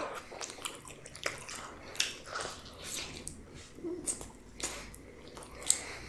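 Close-miked chewing of a person eating: irregular wet smacks and small clicks of the mouth, several a second, with a few sharper ones about two, four and five and a half seconds in.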